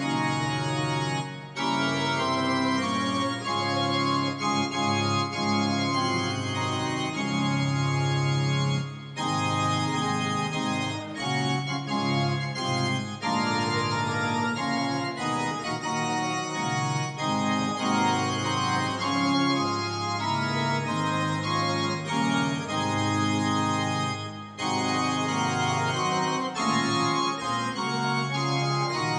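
Organ playing hymn music in sustained chords and phrases, with brief pauses between phrases.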